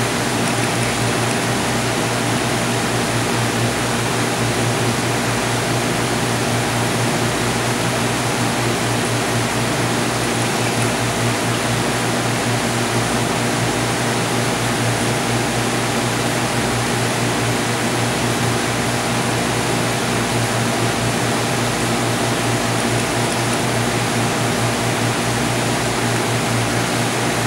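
Aquarium pump and filter noise: a steady rush of moving water under a constant low motor hum.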